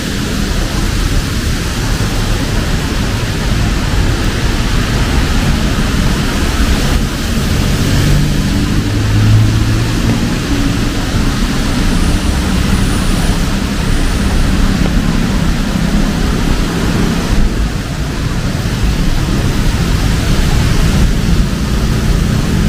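Steady rain with road traffic: a continuous hiss of rain over the rumble of vehicle engines, with one engine louder about eight to ten seconds in as it passes.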